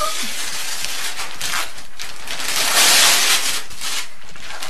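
Wrapping paper being torn and crumpled off a large gift box: continuous rustling and crackling that swells to its loudest about three seconds in.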